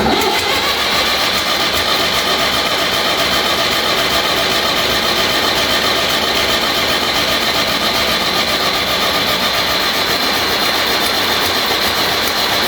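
Massey Ferguson 35X diesel engine turned over steadily on its starter motor for about thirteen seconds without firing, the stop control pulled out. This is cranking to pump fresh oil round the engine and build oil pressure before a real start after an oil change.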